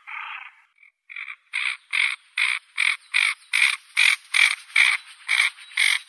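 Common pochard calling: one short harsh call at the start, then from about a second in a steady series of short, harsh, rasping calls, about two and a half a second.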